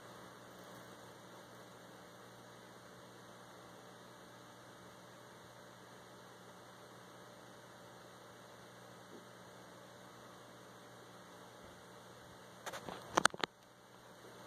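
Steady low electrical mains hum with faint hiss. About a second and a half before the end, a quick cluster of sharp clicks and knocks.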